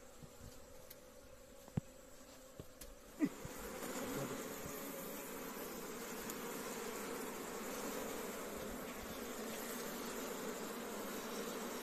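A colony of honey bees buzzing inside a hollow-log hive as its end is opened. A few light knocks come first, then a sharp knock about three seconds in, after which the buzzing swells and holds steady.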